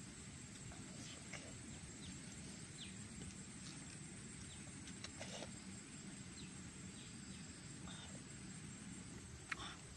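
Quiet rural outdoor ambience: a steady low background noise with faint, scattered short chirps, typical of insects and birds.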